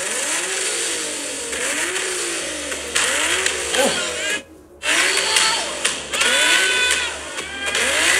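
Nissan 370Z's V6 engine revved in a series of quick blips, each rising and falling in pitch, with a brief pause about halfway through.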